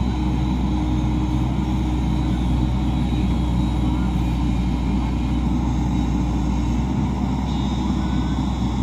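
Excavator's diesel engine running steadily with a low, even hum as its bucket pushes against a large wooden outrigger fishing boat.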